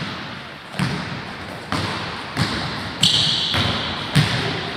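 Basketball being dribbled on a wooden sports-hall floor: steady bounces about one a second, each echoing in the large hall.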